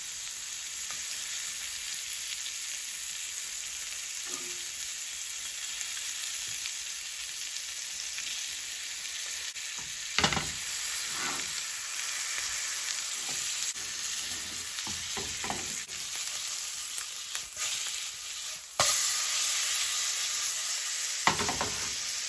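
Whole trout frying in butter with diced onions in a nonstick pan: a steady sizzle with a few short knocks and scrapes of a spatula against the pan. Near the end, with a knock, the fish is flipped and the sizzle gets louder.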